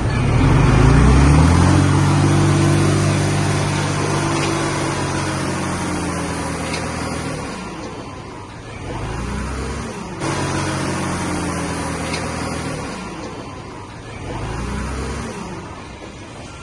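Diesel engine of heavy earthmoving equipment revving up and running steadily. It eases off and picks up again twice.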